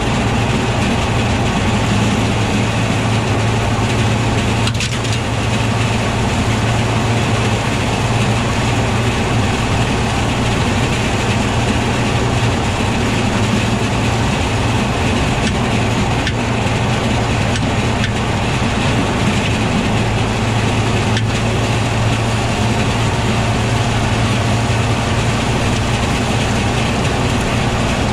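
Tractor engine running steadily with a John Deere flail chopper hitched behind, and a few faint knocks scattered through.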